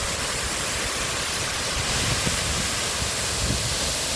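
Steady rushing of water pouring through a dam's spillway gates, close by and even throughout.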